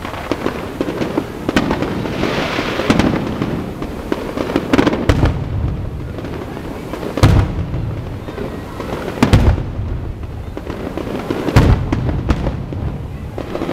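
Aerial firework shells bursting overhead with a series of deep booms. The three loudest come about two seconds apart in the second half, among smaller bangs and a stretch of crackle.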